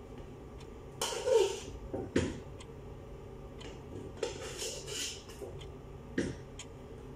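Metal spoon scraping and clanking against metal cooking pots in a few short bursts: the loudest about a second in, a knock a second later, another run of scrapes around the middle, and a last knock near the end.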